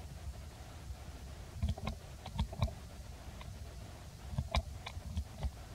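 Soft clicks and smacks in two quick runs, one about two seconds in and one near the end, as an adult macaque grooms an infant macaque, picking through its fur with mouth and fingers.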